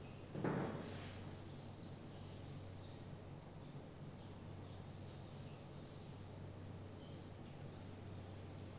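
Quiet background: a steady high-pitched trill, like crickets, over a low hum. A cloth wiping the whiteboard gives a short scuff about half a second in.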